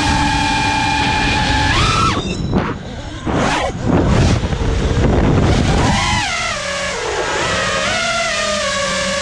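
A 6S FPV freestyle quadcopter's brushless motors whining, the pitch stepping up and down with the throttle. A stretch of rushing, fluttering air noise comes in the middle.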